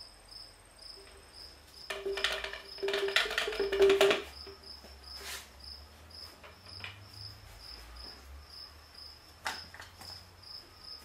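Motor oil glugging out of a plastic jug into a funnel for about two seconds, followed later by two short knocks. A cricket chirps steadily, about twice a second.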